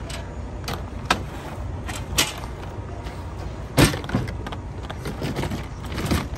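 Metal clunks and clicks of a Freightliner's battery-box cover under the cab step being unlatched and lifted open, the loudest knock about four seconds in, over a steady low rumble.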